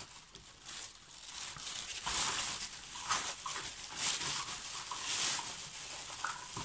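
Rustling and handling noise as loose toy items and a bag are rummaged through, in soft swells about once a second.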